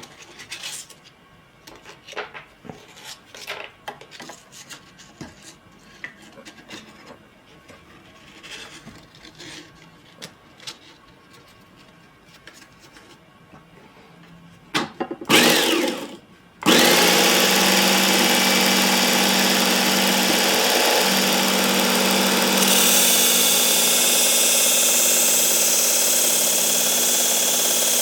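Soft clicks and knocks of a belt being swapped on a Work Sharp Ken Onion Mk2 blade grinding attachment. After a short loud burst, its motor starts and the 1x30-style abrasive belt runs steadily, with a harsher hiss joining a few seconds later.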